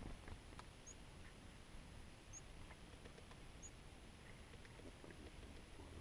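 Chickadee giving short, thin, high calls, four of them spaced a second or more apart, faint over a low wind rumble, with a few soft ticks.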